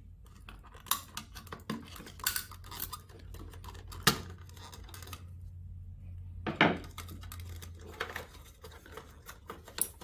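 Screwdriver prying the plastic cover off the terminal box on a mini fridge's compressor: scattered clicks and scrapes of plastic, with two sharp snaps, one about four seconds in and one a couple of seconds later.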